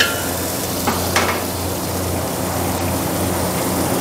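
Sliced onions sizzling in oil in a large aluminium pot. A metal ladle clinks and scrapes against the pot two or three times in the first second and a half, over a steady low hum.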